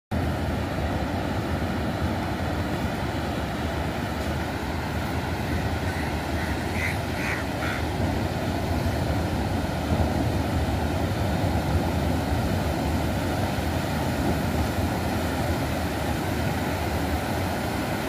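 Sea waves breaking and washing up a sandy beach: a steady rush of surf. A few short high calls are heard about seven seconds in.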